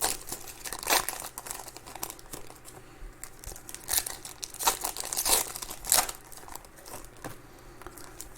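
Baseball card pack wrapper being torn open and crinkled by hand: irregular sharp rips and crackles, the loudest a few seconds in.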